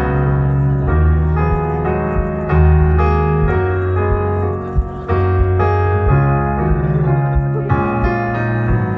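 Piano playing slow, sustained chords, a new chord about every second, as a song's introduction.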